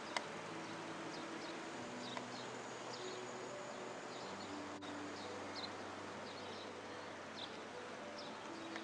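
Small birds chirping in short, scattered calls over a steady hiss, with soft background music holding faint sustained notes underneath.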